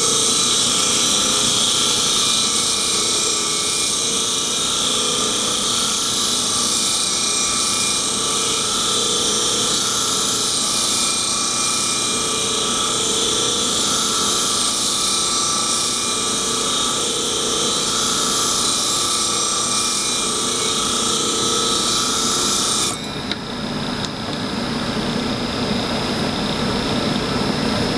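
A5 clipper blade being ground on a powered sharpening machine: a steady, loud grinding hiss that stops abruptly about 23 seconds in, after which a quieter steady machine sound carries on.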